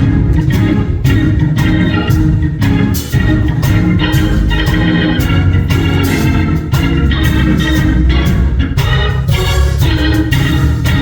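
Church band playing an instrumental introduction: organ chords over bass and drums keeping a steady beat.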